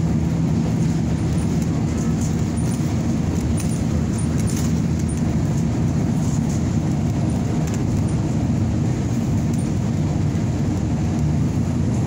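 Steady low drone of a vehicle's engine and road noise, heard from inside while it drives along.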